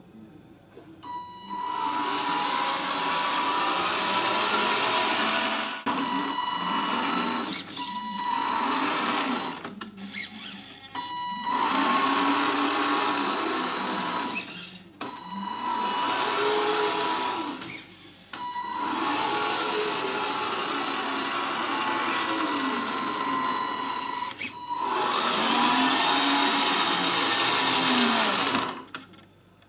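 Tamiya 1/14 Knight Hauler RC tractor truck driving, its electric motor and geared drivetrain whining in a series of runs that stop briefly about half a dozen times. The pitch rises and falls as the truck speeds up and slows down.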